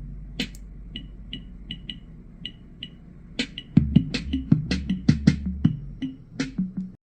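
Electronic music with a drum-machine beat played through a Zealot S53 portable Bluetooth speaker during a bass test: sparse light ticks at first, then kick drums and a deep bass note from about four seconds in. The track cuts off suddenly near the end.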